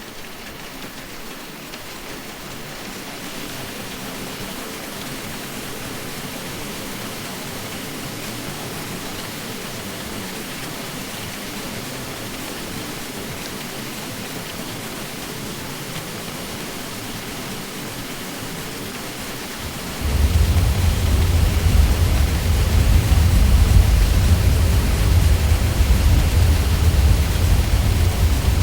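Ceiling fan drone: a steady, even rushing noise that swells gently over the first few seconds. About twenty seconds in, a deep low hum comes in suddenly and the sound gets louder.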